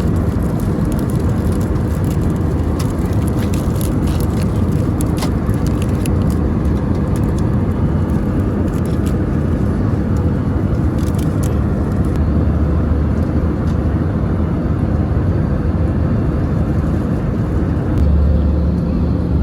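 Steady cabin noise of an Airbus A321 airliner: a loud, even rumble with hiss. The low rumble grows stronger about eighteen seconds in.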